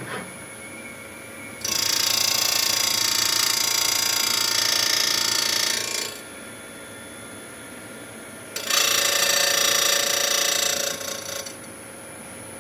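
Automatic saw-blade sharpening machine grinding gang saw blade teeth dry, without coolant. There are two grinding passes of about four seconds each, a loud steady hiss of the wheel on the steel tooth. Between them the machine runs more quietly.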